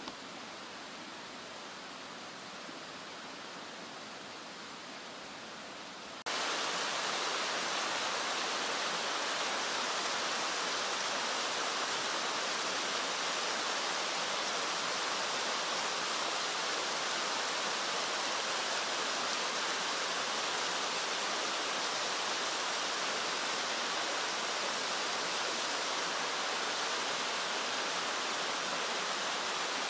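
Steady rush of water from a rocky stream and waterfall. About six seconds in it jumps abruptly louder and fuller, then holds steady.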